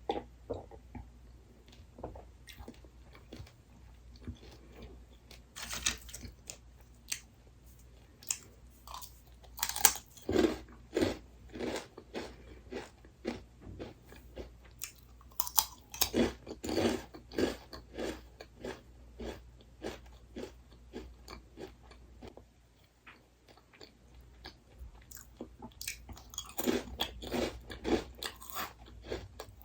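A person biting and chewing crunchy snack food close to the microphone, in several bursts of crisp crunches with quieter pauses between.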